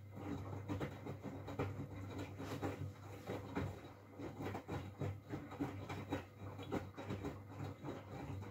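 Miele W433S front-loading washing machine tumbling its drum during the 60 °C main wash while heating: a steady low motor hum with the irregular rustle and knock of wet laundry turning over in the drum.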